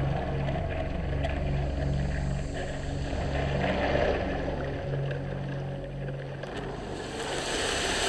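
A low, steady drone of held tones under sea and water noise. About seven seconds in, a brighter hiss of wind and open sea comes up.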